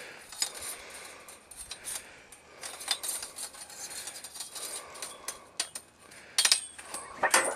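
A thin steel sawmill bandsaw blade being flexed and twisted by hand: the band rattles and clinks throughout, with louder metallic clattering about six and a half seconds in and again near the end.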